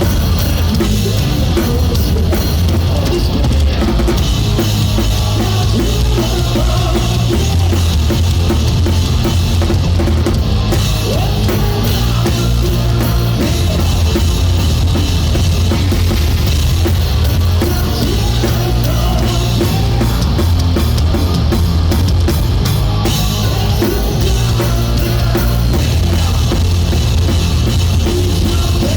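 Live rock band playing loudly and without a break, with the drum kit and its kick drum up front in the mix.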